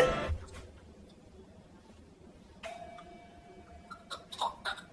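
A faint steady whine holds for about a second and a half, then a few sharp snaps come in quick succession from an electric mosquito swatter.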